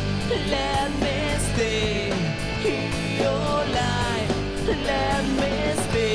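Rock band playing live: a lead singer sings over electric guitar, bass guitar and drums with cymbals.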